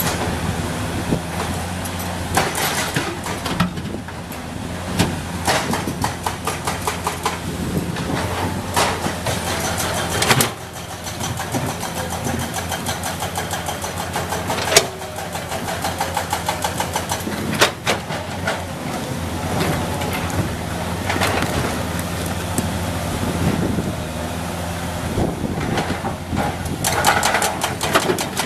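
Komatsu PC200 hydraulic excavator's diesel engine running steadily, with repeated sharp knocks and metallic rattles over it.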